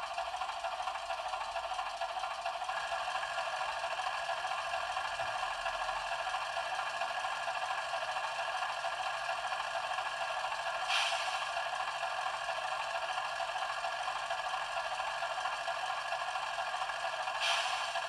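Diesel engine sound of a model DR Kö II shunting locomotive from its ESU LokSound 4.0 sound decoder, played through the model's small loudspeaker: a steady rattling run with no bass. Two brief hisses come about eleven and seventeen seconds in.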